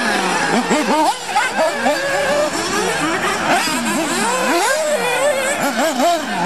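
Several 1/8-scale nitro RC buggies racing, their small two-stroke glow engines revving up and falling back over and over in overlapping, rising and falling whines.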